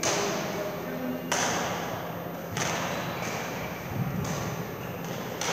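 Badminton rackets hitting a shuttlecock in a doubles rally: sharp hits about a second and a half apart, echoing in a large sports hall, the strongest in the first three seconds and fainter ones after.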